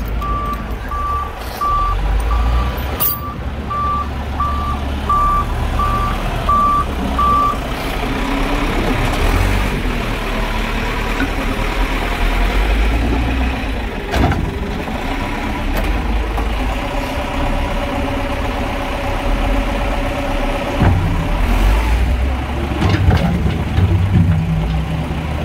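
Caterpillar IT28B loader's diesel engine running, with a backup alarm beeping about twice a second that stops about seven seconds in. A single sharp knock comes about halfway through.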